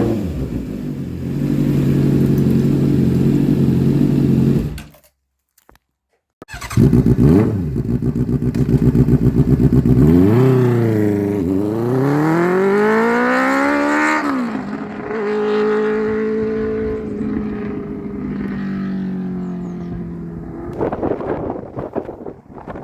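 2007 Honda CB600F Hornet's inline-four engine through its exhaust, in two clips cut apart by a brief silence about five seconds in. First comes a steady engine note. After the cut the revs rise and fall sharply several times, then settle into a steady note that slowly drops in pitch.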